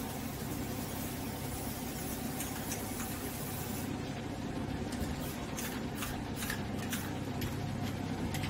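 A steady low mechanical hum throughout. A high hiss over it cuts off about four seconds in, and light clicks and taps follow through the second half.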